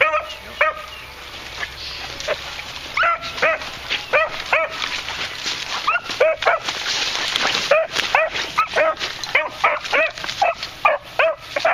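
Beagle hound barking steadily in short, quick yelps, two to three a second, giving tongue while working rabbit scent in a brush pile. A stretch of rustling noise comes a little past the middle.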